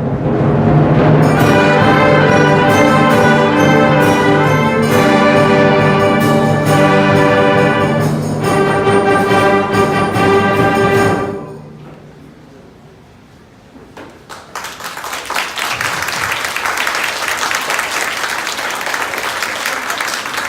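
Large ensemble with brass playing loud, held closing chords that cut off about eleven seconds in. After a short lull, audience applause starts.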